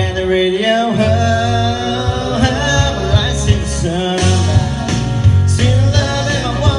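A man singing a country song into a handheld microphone over a karaoke backing track with bass, drums and guitar, holding long notes twice.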